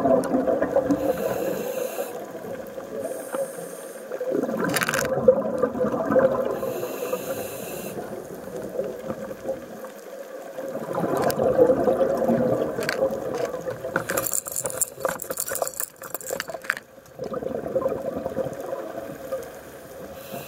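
Scuba diver breathing through a regulator underwater: a burst of exhaled bubbles gurgles up about every six to seven seconds, with a softer hiss of inhalation between them. A run of sharp clicks comes about two-thirds through.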